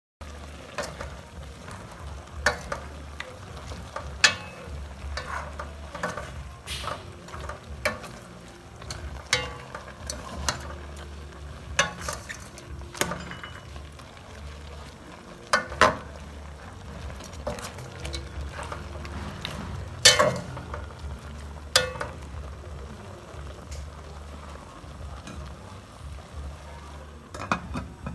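Pork frying in a pan while being stirred: a utensil knocks and scrapes against the pan many times over a faint sizzle, with a steady low hum underneath.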